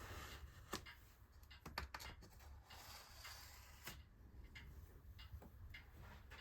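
Faint clicks and light scraping of a metal blade being worked along the glass edge of an iMac's bonded screen, cutting through the adhesive tape. In the second half the clicks come at a fairly even pace, under two a second.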